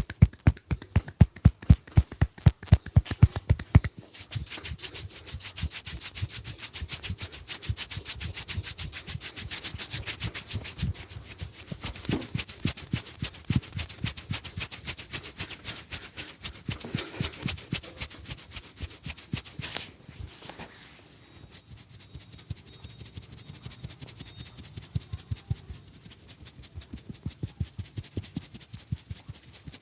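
A barber's hands massaging: rhythmic slaps on the body at about four a second for the first few seconds, then fast, continuous rubbing of the hands over skin and hair.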